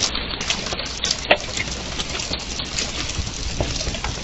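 Hail and rain falling, a steady hiss of rain with many scattered sharp ticks of hailstones striking the wooden deck and surfaces, one louder strike about a second in.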